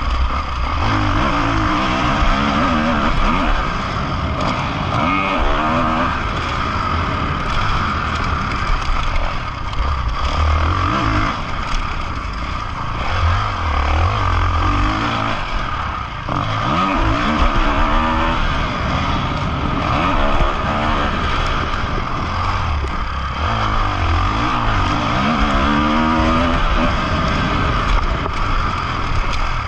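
Motocross bike's four-stroke single-cylinder engine heard up close from the bike, revving hard and easing off over and over as the rider accelerates, shifts and brakes around a dirt track.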